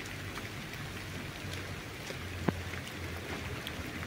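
Steady hiss of rain falling on wet ground and grass, with one faint tap about two and a half seconds in.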